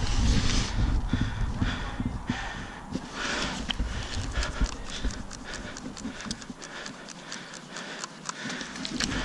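An airsoft player moving forward on foot, with footsteps and gear-handling noise close to the microphone. A quick run of short, sharp clicks fills the second half.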